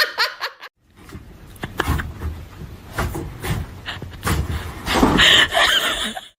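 People laughing, with scattered knocks and bumps.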